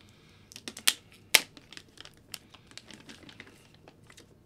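Packaging being handled: crinkling and rustling with scattered sharp clicks, the two loudest about a second in and just under a second and a half in.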